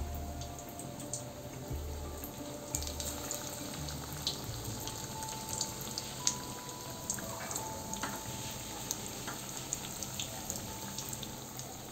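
Hot oil in a wok sizzling and crackling as battered fish-roe fritters deep-fry, with small sharp pops over a steady hiss. The pops get thicker after about three seconds.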